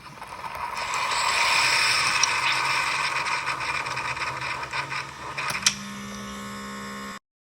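Keurig coffee maker brewing: a pump humming under a steady hiss and whir that builds over the first second. Near the end there is a sharp click, then a steadier, lower hum until the sound cuts off suddenly.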